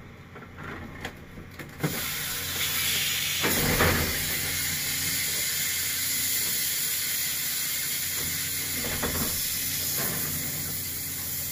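Pressurised refrigerant hissing out of an air-conditioning unit as an excavator grapple crushes it: a sudden loud, steady hiss that starts about two seconds in and keeps going, with two heavier crunches of the unit along the way.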